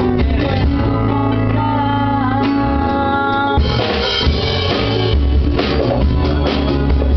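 Live band rehearsal: a woman sings a held, wavering line over drum kit, electric bass and guitars. The drums and cymbals hit harder from about halfway through.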